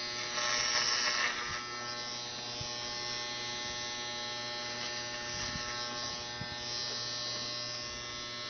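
Electric hair clippers running with a steady buzz as they shave hair off a head, louder and hissier for about a second near the start.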